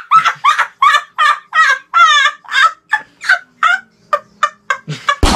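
A boy laughing hard in a long run of high, squealing bursts, about three a second, each sliding down in pitch, the bursts growing shorter and weaker in the last second or so.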